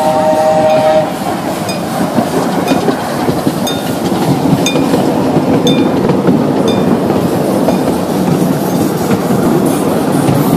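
Small steam train running along its track, the open passenger cars rumbling steadily and clacking over the rail joints about once a second. A steam whistle's three-note chord sounds and cuts off about a second in.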